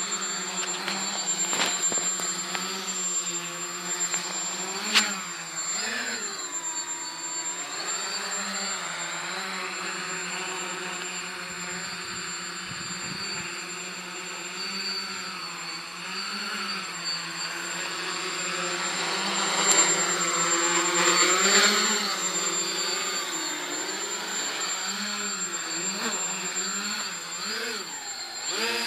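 Small electric multicopter's motors and propellers buzzing as it hovers, the pitch wavering up and down with constant throttle corrections. A sharp click about five seconds in, and the buzz grows louder about twenty seconds in.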